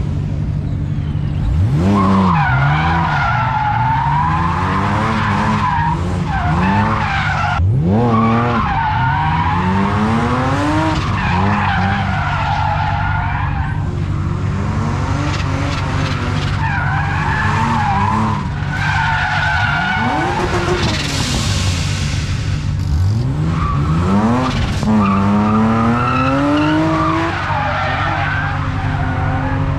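A BMW drift car's engine revving up and down again and again over long, wavering tyre squeal as the car slides, with a steady low hum underneath.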